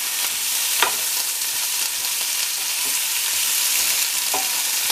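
Chopped tomatoes frying with onions and garlic in a pan, sizzling steadily while being stirred with a wooden spatula, with a light tap about a second in.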